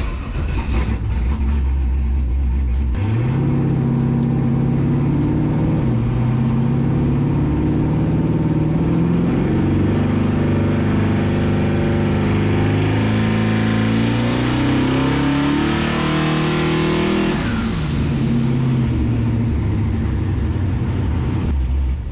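Twin-turbo LS V8 in a Ford Fairmont making a pull on a hub dyno, heard from inside the car. After about three seconds of low rumble the engine note climbs steadily for some fourteen seconds, then the throttle closes and the note falls away to a lower, steady run.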